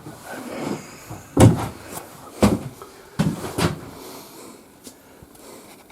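Four knocks and bangs in quick succession, the first the loudest, with some rustling and scraping before them.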